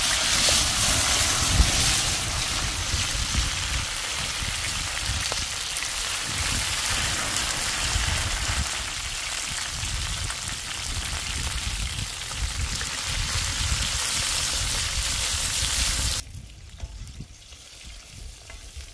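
Cut okra sizzling in hot oil on an iron tawa, a loud even hiss that starts as the okra hits the pan. The sizzle cuts off suddenly about sixteen seconds in, leaving a much quieter low rumble.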